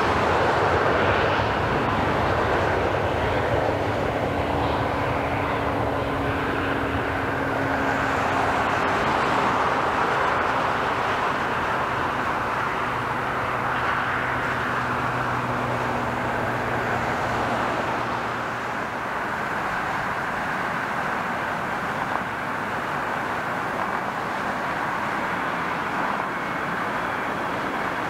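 Jet airliner's engines at takeoff power: a steady jet roar that slowly fades as the plane climbs away, with a faint engine hum dropping slightly in pitch.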